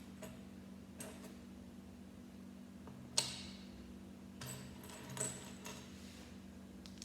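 Plastic Lego pieces clicking and rattling as they are handled and pressed together, in a few scattered clicks with a sharp one about three seconds in and a small flurry of clicks a second or so later, over a steady low hum.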